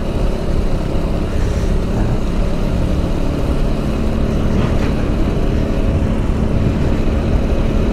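Motorcycle riding at highway speed: a loud, steady wind rumble on the microphone over the engine's drone, with a steady hum that grows stronger about halfway through.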